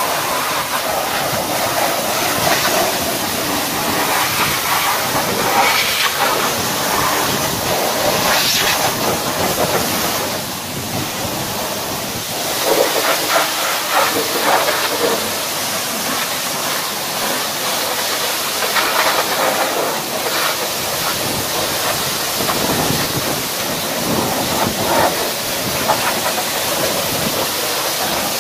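High-pressure car-wash lance spraying water onto a car's engine bay and the underside of its bonnet: a steady hissing spray that swells and eases in places.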